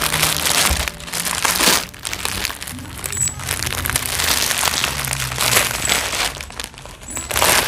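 A plastic shipping parcel being torn open and handled, giving an irregular run of crinkling and rustling.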